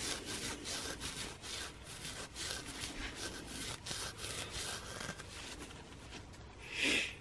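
Abrasive Scotch-Brite pad rubbed by hand over the copper commutator of an electric trolling motor's armature, cleaning it up where the brushes ride. It goes in a quick run of scrubbing strokes that thins out, with one louder rasp near the end.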